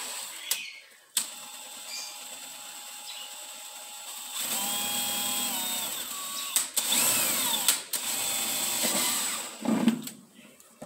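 Cordless drill boring drainage holes through the bottom of a plastic planter. The motor whirs at a lower speed from about a second in, runs louder from about four seconds, and speeds up and slows down several times before stopping shortly before the end.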